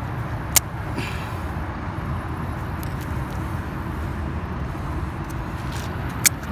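Wind buffeting the microphone: a steady low rumble without pitch. Two sharp clicks sound over it, about half a second in and near the end.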